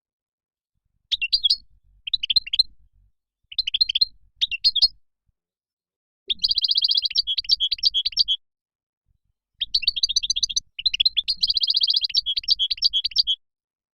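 European goldfinch song: a few short twittering phrases, then two longer runs of fast trills and chirps, broken by sudden dead silences.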